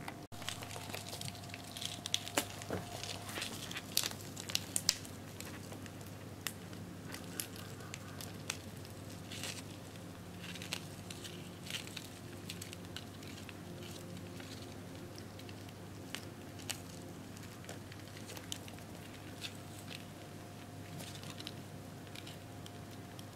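Mating Japanese rhinoceros beetles making faint, irregular scratchy clicks and crackles, thickest in the first few seconds, over a steady low hum.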